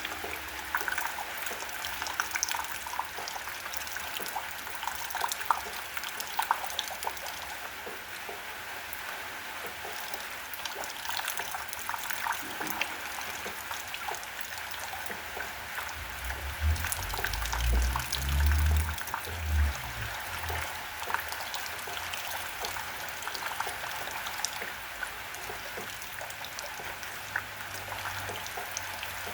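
Steady rain falling, with many sharp individual drop ticks over an even hiss. A low rumble swells and fades about two-thirds of the way through.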